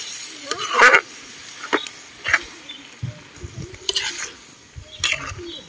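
Metal spoon stirring food in a wok, scraping and knocking against the pan in several sharp strokes over a light sizzle.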